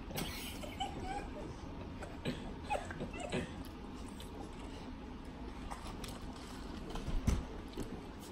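Quiet eating and drinking at a table: scattered small mouth clicks and smacks and sips from a plastic cup, with a soft low thump near the end.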